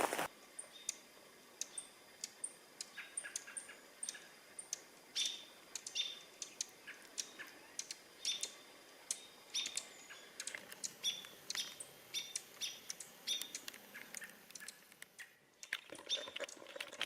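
A small bird chirping: short, high call notes repeated irregularly, a few every second, against a quiet forest.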